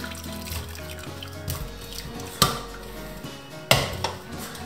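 Background music over a faint pouring and dripping of broth through a perforated silicone strainer into a steel pot. Two sharp kitchenware knocks come, one about midway and one near the end.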